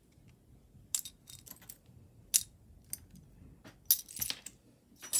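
Small metal costume jewelry pieces clinking against each other as they are handled and dropped back onto a pile, a few separate sharp clinks with lighter ticks between them.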